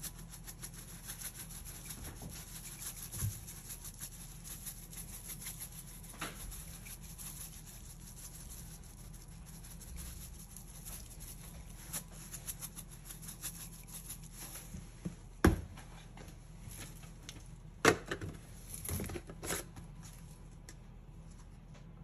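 Pepper grinder being twisted over a dish of asparagus: a rapid, fine, dry rasping crackle as peppercorns are ground, followed by a few sharp knocks in the second half.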